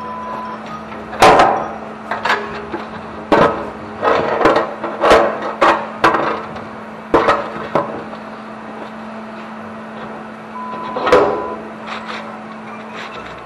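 Steel truck-bed panel knocking and clanking as it is handled against the workbench: a run of sharp metallic knocks, irregularly spaced, over the first eight seconds and one more loud knock about eleven seconds in, over a steady low hum.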